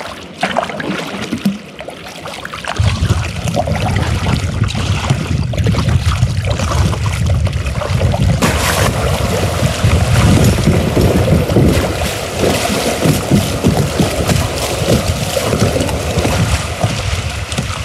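Water rushing around a kayak moving on a river current. A heavy low rumble of wind on the microphone starts suddenly about three seconds in and continues.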